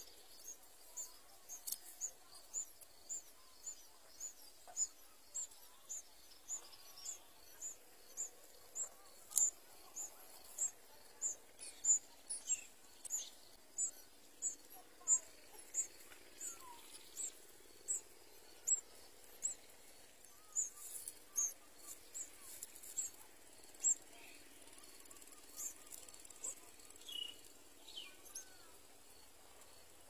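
Sooty-headed bulbul nestlings begging: short, high, thin cheeps repeated about twice a second, dying away near the end.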